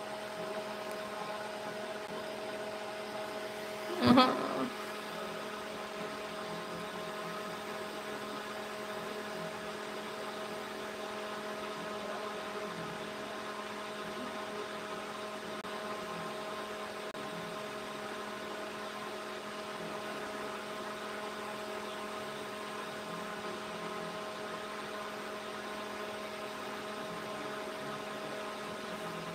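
A steady hum made of several even tones, broken once about four seconds in by a brief, much louder sound.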